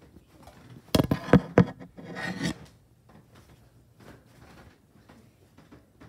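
Handling noise from fingers on the recording phone: a quick run of sharp knocks about a second in, then a short rubbing scrape.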